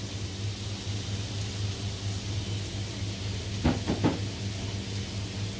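Chopped onion and red and green peppers sizzling in olive oil in a pan, a steady hiss over a constant low hum. About two-thirds of the way through there are three quick clicks.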